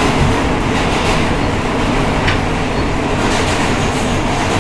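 New York City Subway E train car running, heard from inside the car: a steady, loud rumble with some clicking of the wheels over the rails.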